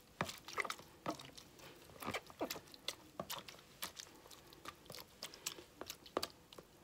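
Wet shredded wild garlic and cabbage squishing and crackling as bare hands squeeze and press it down in a plastic tub, in irregular soft crunches. The vegetables are being packed down under their brine for pickling.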